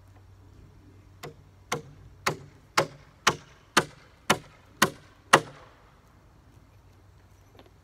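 Hammer driving a nail into a wooden shed frame: nine sharp blows about two a second, generally growing louder, with the last the loudest.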